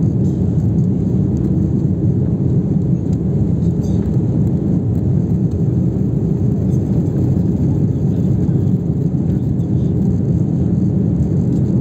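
Steady roar of an Airbus A330-300's engines and airflow, heard inside the passenger cabin during the climb after takeoff. It is an even, low noise with no change in level.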